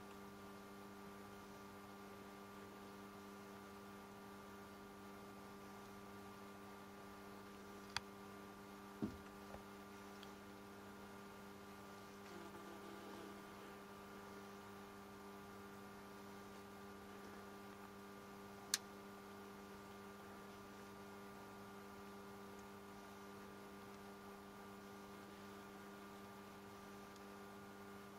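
Near silence with a faint steady electrical hum made of several fixed tones, broken by two sharp clicks, one about eight seconds in and one near nineteen seconds, and a short thud just after the first click.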